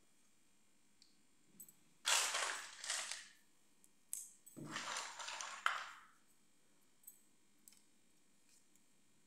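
Small plastic toy accessories being handled and set down on a marble floor: two spells of rustling, about a second each, with light clicks and a low knock.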